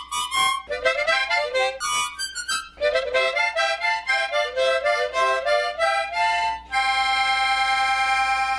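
Harmonica played as a short jingle: a quick run of short notes, then one long held note near the end that stops abruptly.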